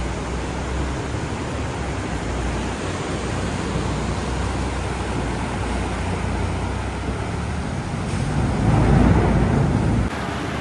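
Canal boat's engine running steadily under loud rushing wind and water noise, swelling louder for a second or two near the end before the sound changes abruptly.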